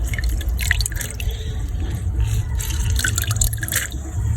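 Liquid dripping and splashing into a container in quick, irregular plops, over a steady low hum.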